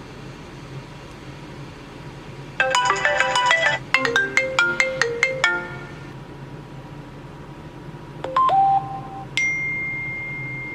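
A quick run of bright chiming electronic notes lasting about three seconds, like a phone ringtone melody. Later come a short two-note chime and then a single ringing tone held for over a second.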